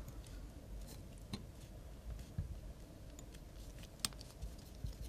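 Faint clicks and rustles of fly-tying thread being wrapped tightly by hand over a bunch of hair on a large fly, with a sharper click about four seconds in.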